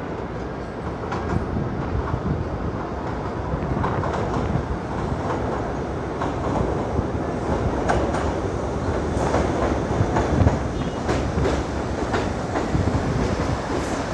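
New York City subway train rolling by steadily, its wheels clicking irregularly over rail joints.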